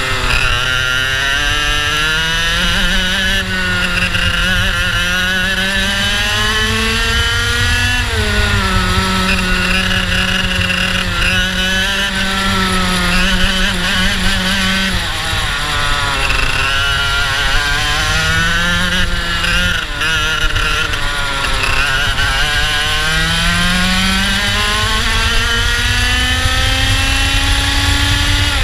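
IAME two-stroke kart engine heard onboard at racing speed. Its pitch climbs steadily down each straight and drops sharply at each braking point, several times over the lap.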